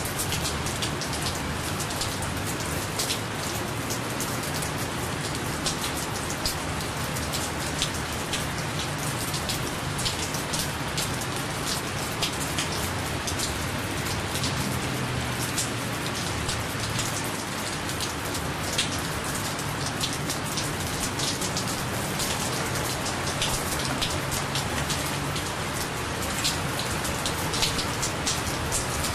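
Steady rain falling, with many separate sharp drop hits standing out above the even hiss of the downpour.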